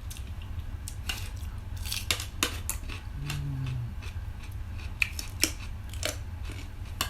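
Clinks and clicks of cutlery against plates while eating, a dozen or so scattered sharp taps, with a short hummed "mm" a little past the middle.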